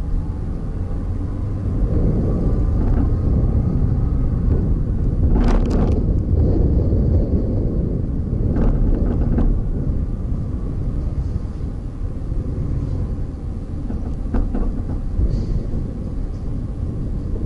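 Steady low rumble of a vehicle moving along a road, with a few brief sharp knocks, the loudest about five and a half seconds in.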